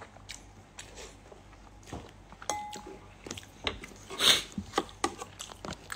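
Someone chewing and crunching crisp food close to the microphone: a run of small crunches and clicks, with one louder burst about four seconds in.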